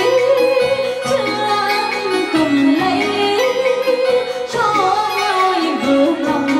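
Music with a singing voice: a melody of long held notes that slide down from one to the next, over instrumental accompaniment.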